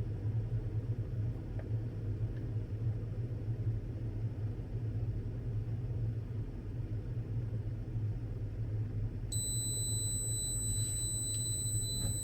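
Makita DKT360Z cordless kettle heating water to the boil, with a steady low rumble of water near boiling point. About nine seconds in, a steady high-pitched electronic beep tone starts and holds.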